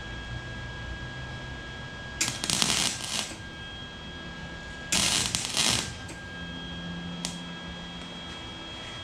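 Arc welder laying two tack welds on exhaust tubing: two bursts of arc noise, each about a second long, the second starting roughly three seconds after the first.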